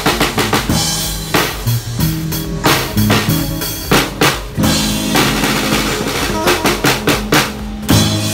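Acoustic drum kit played in a busy rock beat, with snare, bass drum and cymbal hits, over recorded backing music with a bass line.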